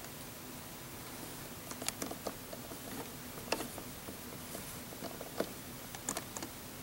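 Scattered light clicks and taps from small plastic Littlest Pet Shop figures being handled and moved by hand, over a steady background hiss.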